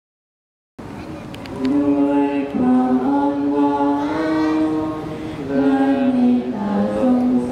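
Voices singing a slow melody in long held notes, starting abruptly about a second in after silence.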